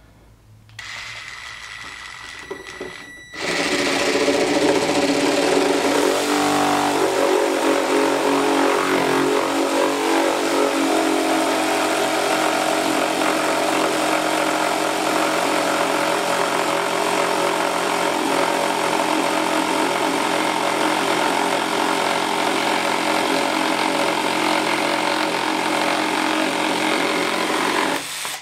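AEG 12 V multi-tool with its Omnipro reciprocating saw head, a coarse 6-teeth-per-inch wood blade, cutting through a 50 by 50 mm block of Tasmanian oak hardwood. A quieter steady whine starts about a second in. About three seconds in the cut turns loud and steady and runs on until the saw stops suddenly near the end, once the block is cut through.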